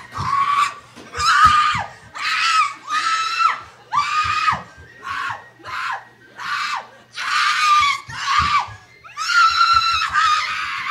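A woman screaming over and over in high-pitched shrieks, about one to two a second, many of them trailing off with a falling pitch.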